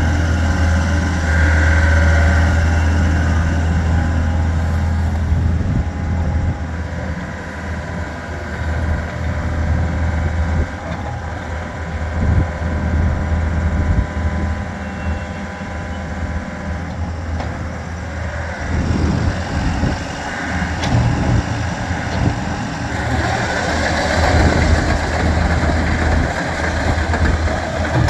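Takeuchi TB070 excavator's diesel engine running as the machine is worked, with the upper structure swinging and the boom moving. The engine note and loudness rise and fall under hydraulic load.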